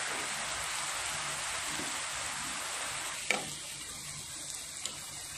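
Rosette-cookie batter deep-frying in a pot of hot oil, a steady sizzle of bubbling oil. A sharp knock comes about three seconds in, and a fainter one near the end; after the first knock the sizzle is a little quieter.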